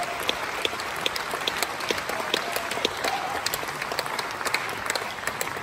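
Concert hall audience applauding, a dense steady patter of many hands clapping.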